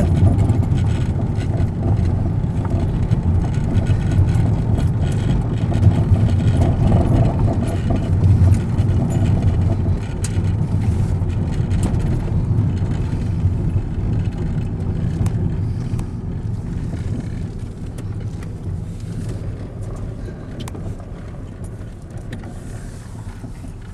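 Car cabin noise while driving: a steady low rumble of engine and tyres on the road, gradually getting quieter.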